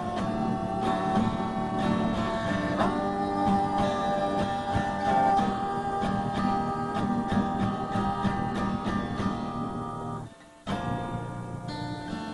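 Music led by acoustic guitar, plucked and strummed, with a brief break near the end.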